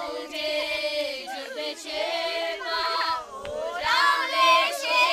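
A small group of girls singing together, several young voices holding notes.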